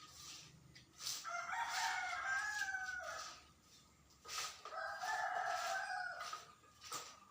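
A rooster crowing twice, two long calls of about two seconds each, roughly three seconds apart.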